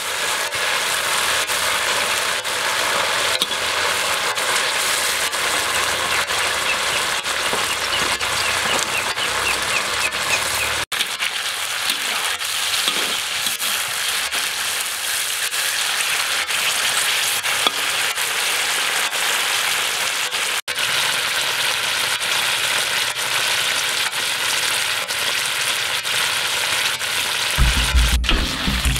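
Tarantulas deep-frying with chopped garlic and chilli in a wok of hot oil: a steady sizzle of frying, with a metal spatula stirring through it. The sizzle breaks off for an instant twice.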